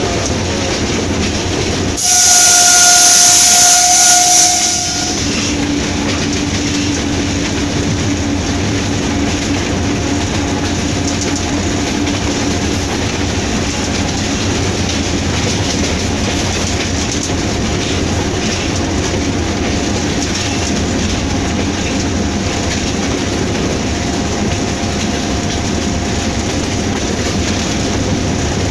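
Inside the cab of a Hitachi PHA-20 diesel-electric locomotive under way: steady engine and wheels-on-rail running noise. About two seconds in the locomotive horn sounds one steady blast of about three seconds, the loudest thing here.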